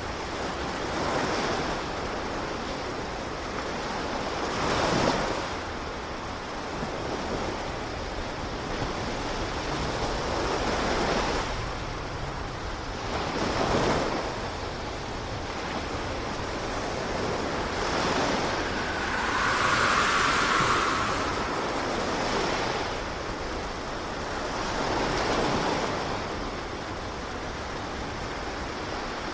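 Ocean waves breaking and washing over shoreline rocks, the surf swelling and falling every few seconds.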